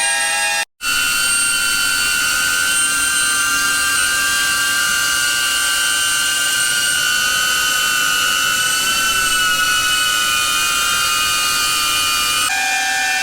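A DJI Avata drone's motors spinning Master Airscrew three-blade propellers, giving a steady high whine made of several tones. It cuts out for an instant about a second in, and near the end the whine drops to a lower pitch.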